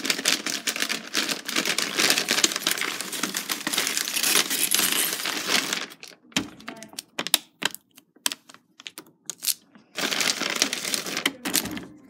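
Plastic shrink-wrap on a case of bottled water crinkling as it is handled, with plastic bottles clicking and knocking together. The crinkling is dense for about six seconds, breaks into scattered clicks and knocks, then turns dense again near the end.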